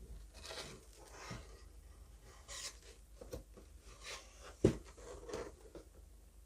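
Faint, scattered rustling and scraping handling noises, with one sharp click about two-thirds of the way through.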